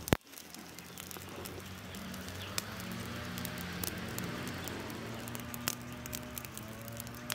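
Beef steaks sizzling on a mesh grill grate over an open fire, with a steady hiss and scattered sharp crackles and pops from the fire. There is a single loud click right at the start.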